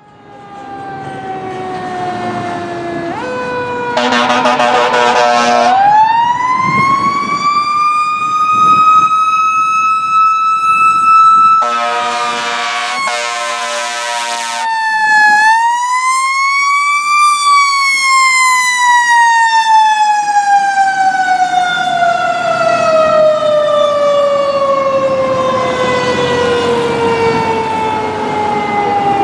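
Fire apparatus siren winding up to a held wail, then rising once more and slowly winding down in pitch. Two air horn blasts cut in, about four seconds in and again near the middle.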